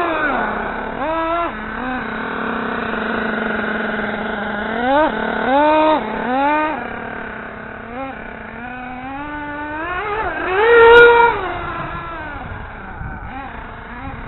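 Vintage radio-controlled buggy's motor revving in repeated bursts, its pitch rising and falling with the throttle. There is a steadier run about two to four seconds in, and the loudest, highest rev comes about eleven seconds in.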